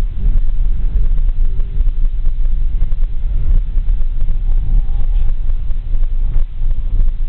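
Volkswagen Touareg 3.0 V6 driving over a rough, rocky dirt track, heard from inside the cabin: an uneven low rumble of engine, tyres and body over the stones.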